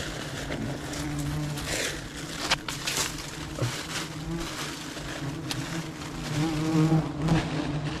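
Swarm of wild honeybees buzzing, an uneven hum that wavers in pitch and swells and fades, from bees stirred up as their nest is smoked and cut. A few sharp clicks or snaps sound in the first half.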